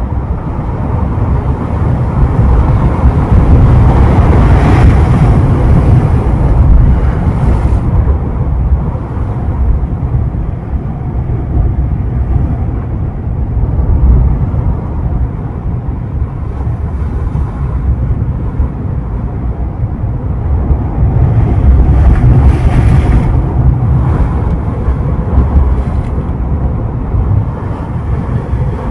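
Atlantic surf breaking on the shore, with a steady deep rumble. The hissing wash of a breaking wave swells up twice, about four seconds in and again about twenty-two seconds in.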